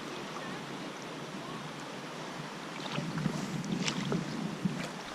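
Sea kayak being paddled: water splashing and dripping off the paddle and lapping at the hull, with scattered small splashes that grow livelier from about three seconds in.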